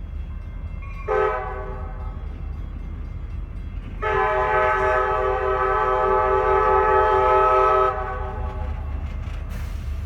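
Diesel locomotive air horn sounding a chord: one short blast about a second in, then a long blast of about four seconds. A steady low rumble of the passing train runs underneath.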